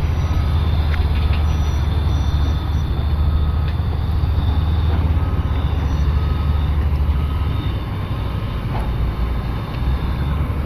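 Heavy diesel construction machine engine running with a steady low rumble, with a faint short beep repeating every second or so.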